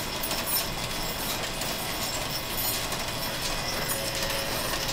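Belt-driven metal lathe and its overhead line shaft running: a steady mechanical clatter of shafting, pulleys and flat belts, with light clinks.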